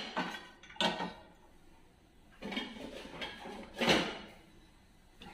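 Dishes being set into a dishwasher's racks: a few separate clatters and knocks, the loudest about four seconds in.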